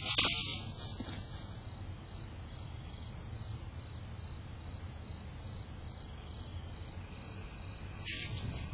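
Crickets chirping in a faint, even, high-pitched pulse over steady background noise. There is a short rustle right at the start.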